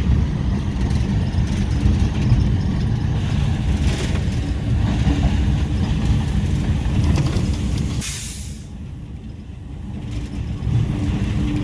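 GE U18C diesel locomotive running, heard as a steady low rumble from inside the cab. About eight seconds in there is a short, sharp burst of hiss, after which the engine sound drops for a couple of seconds before building back up.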